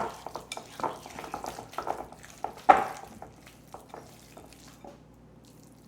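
Spoon stirring and scraping thick cookie dough in a bowl, in irregular strokes, with one louder scrape about three seconds in; the stirring tails off near the end.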